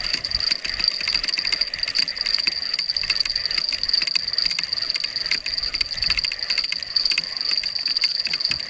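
Insects droning steadily at a high pitch, with irregular light clicks and rattles from a spinning reel and rod being handled.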